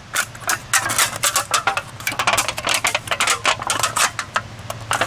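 Thin aluminum drink can being cut apart, the metal crackling and clicking in quick, irregular snips.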